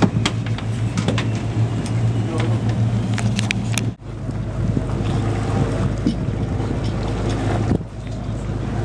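Steady low drone of a schooner's engine running under way, with wind on the microphone and a few scattered clicks. The sound breaks off sharply about four seconds in and again near the end, then carries on.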